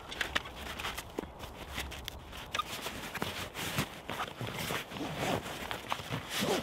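Irregular rustling and light clicks and knocks of a person moving about and handling things on the forest floor, a little busier toward the end.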